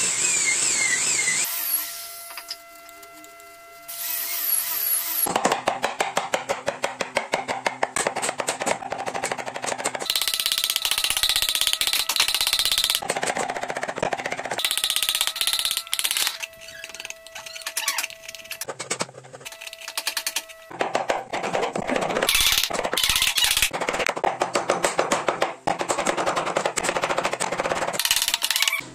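Wooden mallet striking a carving chisel into a wooden door panel, quick repeated taps in runs broken by short pauses, the chisel cutting out chips of wood.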